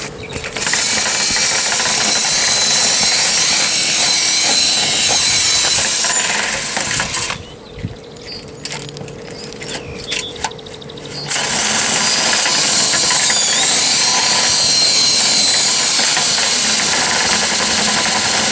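A power tool motor runs at high speed in two long runs, each about six to seven seconds, with its whine wavering slightly in pitch. In the pause between the runs there are a few light clicks and knocks.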